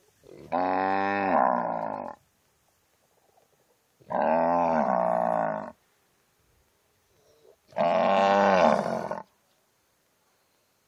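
Cow mooing: three long, loud moos a few seconds apart, each a drawn-out pitched call that dips in pitch at its end.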